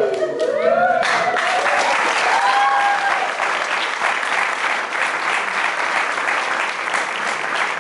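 Audience applause, with hands clapping densely. A few voices call out over it in the first three seconds.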